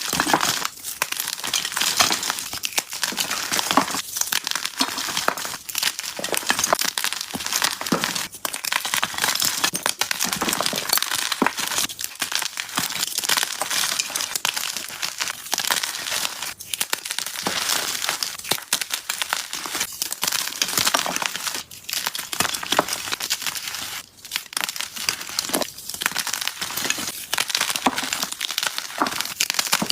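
Dyed gym chalk blocks being crushed and crumbled, a continuous dense crackling and crunching of many small breaks.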